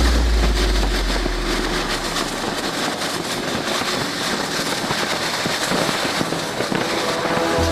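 Noise of a fast-moving passenger train: a dense, crackling rush of wind and wheel noise with many small clicks from the track. A deep low tone fades out over the first couple of seconds.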